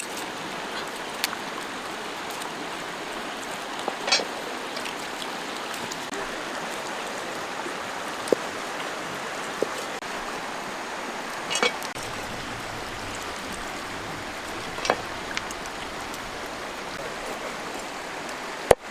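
Running water, a steady rush like a stream or small waterfall, with a few light clicks and knocks scattered through it.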